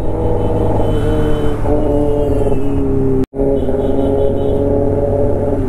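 Motorbike engine running at a steady pitch while riding in road traffic, cut off for an instant a little past halfway.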